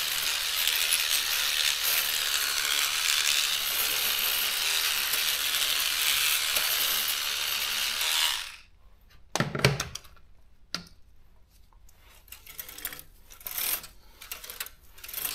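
Battery-powered electric cleaning brush running and scrubbing soapy plastic on a typewriter's keyboard: a steady buzzing hiss that stops suddenly about eight seconds in. Scattered light clicks and knocks from the typewriter being handled follow.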